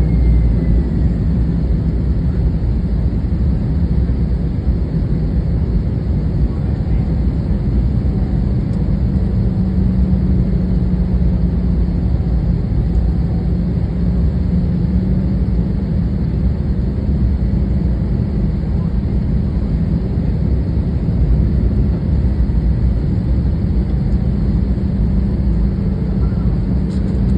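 Steady cabin noise of a Boeing 787-8 airliner on final approach, heard from a window seat: a loud low rumble of engines and airflow with a hiss over it. A low hum grows stronger for several seconds midway, then eases.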